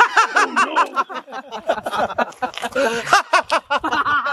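A man laughing loudly in a long run of rapid, pitched ha-ha bursts, several a second.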